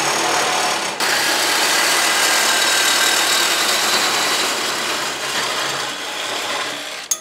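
Craftsman cordless reciprocating saw cutting through metal exhaust tubing clamped in a vise, running steadily with a short break about a second in.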